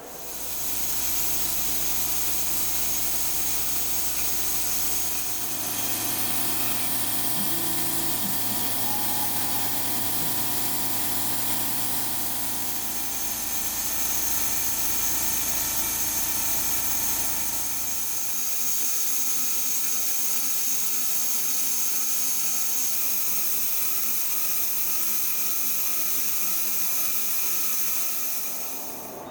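CNC milling machine cutting: a steady spindle whine over a loud hiss of cutting, its low tones shifting a few times as the tool moves through the cut.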